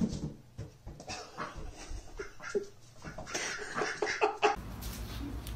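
Pet ducks on a hardwood floor: light pattering taps of their feet, with several short soft calls in the second half.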